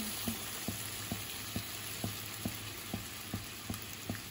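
A creamy sauce with chunks of potato, carrot and sausage simmering in a nonstick frying pan: a steady sizzle with small bubble pops, two or three a second.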